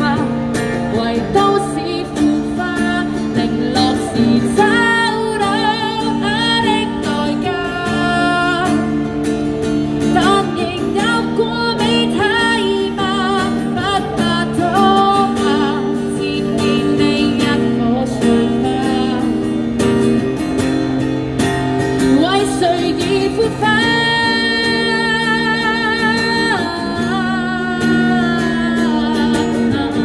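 A woman singing with vibrato on long held notes, accompanied by a strummed acoustic guitar, both amplified through a small portable amplifier.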